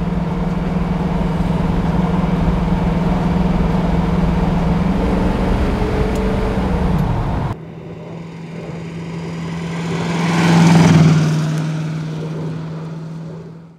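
The Jensen Interceptor's big V8 running as the car cruises, heard inside the cabin with a steady drone and road rumble. About seven and a half seconds in it cuts abruptly to a thinner engine sound that swells to a peak a few seconds later and then fades away.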